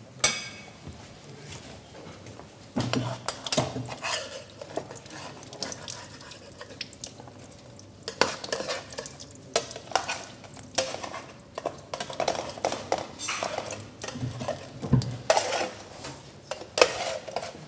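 A metal utensil scraping and clinking against a metal pan on the stove, in irregular short knocks with a quieter pause in the middle.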